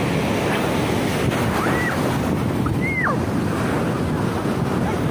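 Steady wind rushing over the phone's microphone together with surf from the sea, an even dense noise with no break. Two brief faint high sounds rise and fall about two and three seconds in.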